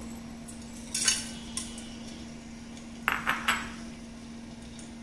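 Whole spices tipped from a glass bowl into a steel pot, with sharp clinks of glass and spices against the metal: a couple about a second in and a quick cluster around three seconds. A steady low hum runs underneath.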